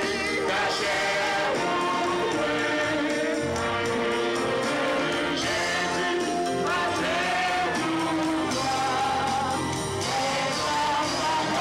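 Congregation singing a gospel song together in full voice, with band accompaniment.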